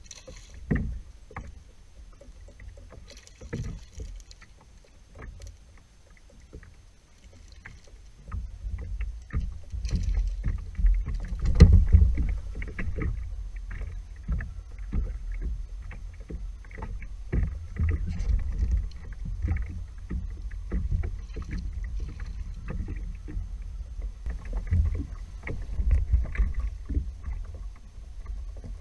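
Water splashing and slapping against the plastic hull of a Hobie Pro Angler 12 fishing kayak, with scattered knocks and clicks over a low rumble. It grows busier about eight seconds in, with the loudest knock a few seconds later.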